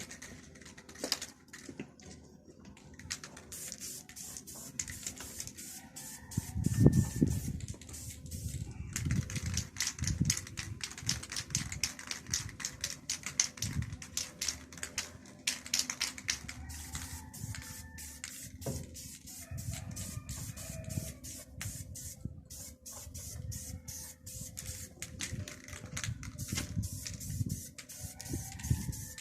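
Hand tools and parts being worked during a repair: rapid irregular clicking and ticking with bursts of hissing and scraping, and low knocks, the loudest about seven seconds in.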